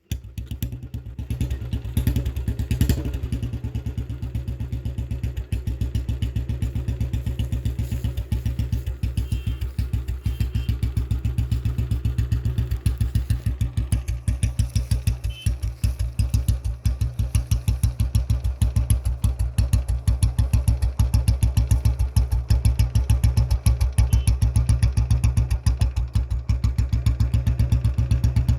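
Old Royal Enfield Bullet's single-cylinder four-stroke engine idling cold, just after a cold start, with its thump: an even, fast run of low beats.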